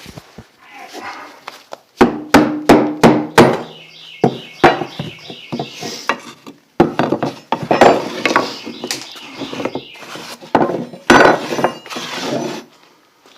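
Hammer blows, knocking on wood, first in a quick run of about five strikes that leave a short low ring, then in looser, irregular knocks.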